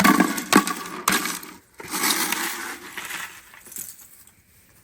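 Ice cracking and breaking, with sharp knocks and glassy clinks of ice pieces over a crackling that fades away.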